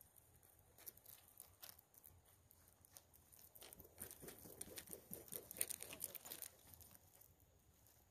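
Faint clicking and pattering of cobbles knocking together under turkey vultures landing and stepping around a salmon carcass, busiest in the middle few seconds.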